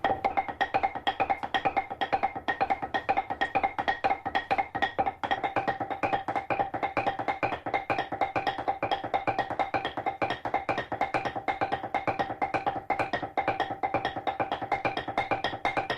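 Dadeumi laundry beating: wooden clubs striking folded cloth on a stone block in a fast, even rhythm of knocks, several a second, with a woody ring.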